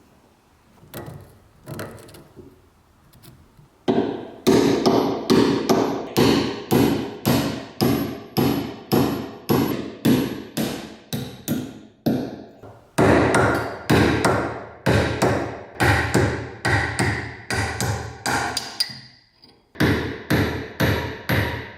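Hammer blows on metal, about two a second with a ringing after each, in runs broken by short pauses, after a few light knocks at the start.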